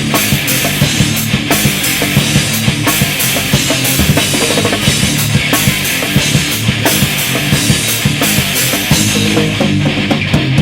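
Live heavy rock band playing loudly, the drum kit keeping a steady beat of hits under the band.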